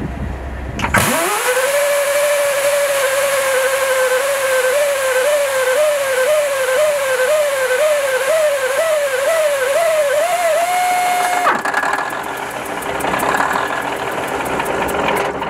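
Starter motor cranking a Budd RDC railcar's Cummins NTA855 diesel on a start attempt after 11 years idle: a steady whine that comes in suddenly about a second in, wavers rhythmically about twice a second, steps up slightly in pitch, then cuts off sharply after about ten seconds. A quieter rapid ticking follows.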